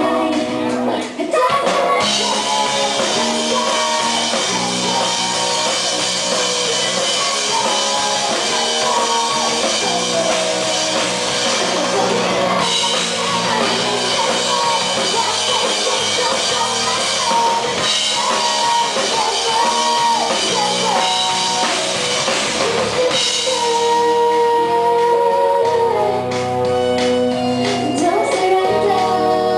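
Pop-rock band with drum kit and guitar backing a female singer performing a song live.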